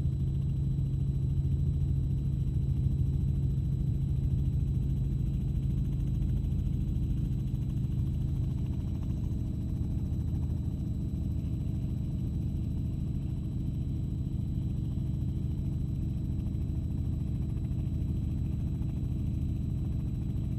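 Aircraft cabin noise: a steady low engine drone. Its deepest hum eases slightly about eight seconds in.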